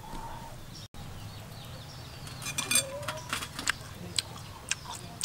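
Scattered sharp clicks and clinks of plates and a metal tray during eating, bunched together about two and a half to three and a half seconds in, the loudest among them. Birds chirp faintly in the background.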